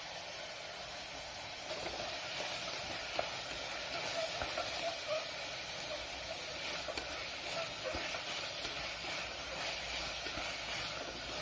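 Onion-tomato masala sizzling steadily in oil in an aluminium pressure cooker as it cooks down, stirred with a wooden spatula, with a few light taps.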